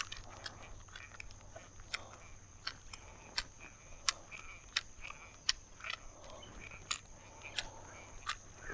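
Fishing reel being cranked at a steady pace to retrieve a jig, with a sharp click about every three-quarters of a second over a faint steady low hum.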